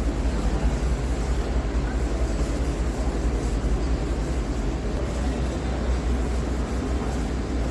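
Welding arc running steadily: an even, rough hiss over a steady low hum.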